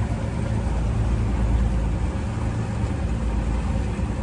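Boat engine idling, a steady low hum.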